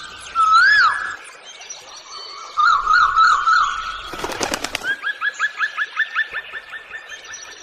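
Songbirds singing: a loud rising-and-falling whistle near the start, a quick warbling run about three seconds in, then a steady series of short upslurred notes, about three a second. A brief clattering burst sounds about halfway through.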